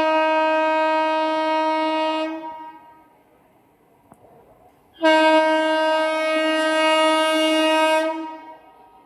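Indian Railways locomotive horn sounding two long, steady blasts of about three seconds each, separated by a pause of about two and a half seconds.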